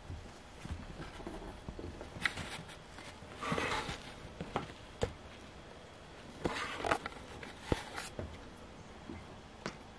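A kitten playing in and around a fabric cat cave on a hardwood floor: scattered light taps and knocks, with two short bursts of rustling, about three and a half and six and a half seconds in.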